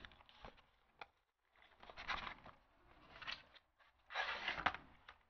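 Paperboard retail box being opened by hand: a few light clicks, then short bursts of cardboard scraping and rustling. The loudest comes near the end as the white inner box slides out of the tight outer box.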